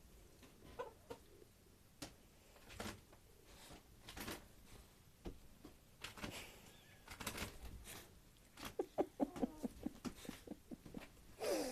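A dog whimpering in faint, short, quick cries that come faster in the last few seconds, over scattered faint ticks and taps. It breaks into a sudden loud yelp at the very end.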